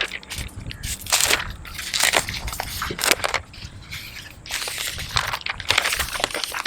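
Packaging being handled during an unboxing: a run of irregular crinkling, crackling and scraping noises.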